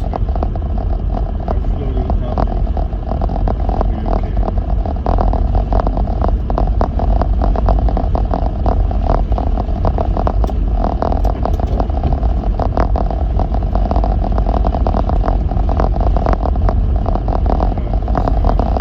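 Lexus GX470 SUV driving slowly over a snow-covered road: a steady low road-and-engine rumble with many small knocks and scrapes from the tyres and packed snow.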